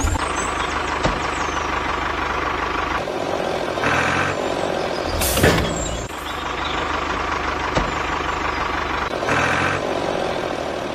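A vehicle engine running steadily, with three short louder bursts: about four seconds in, at five and a half seconds, and near the end.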